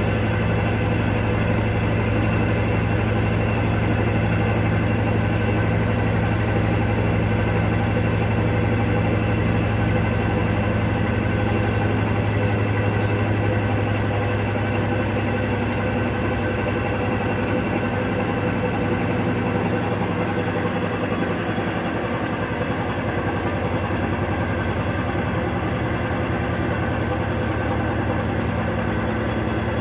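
Electrolux LTC12 12 kg washing machine running with a steady, loud mechanical hum and rumble, its bearings rumbling loudly, a sign of worn bearings. About halfway through, the low hum drops slightly in pitch and level.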